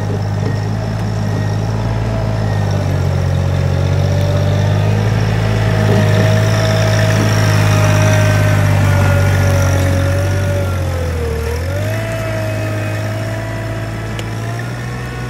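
John Deere tractor engine running steadily, with a higher whine above the engine hum. About three quarters of the way through, the engine note sags briefly and then picks back up, as if it is taking load.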